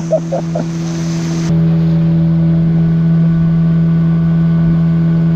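A motorboat's engine running steadily at one even pitch. It grows louder and fuller about one and a half seconds in.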